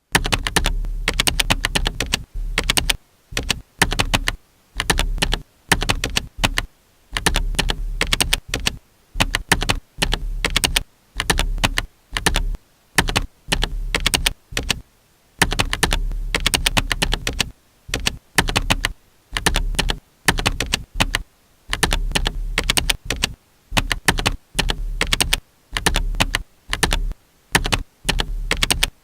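Typing on a computer keyboard: quick runs of key clicks in bursts of a second or two, broken by short pauses.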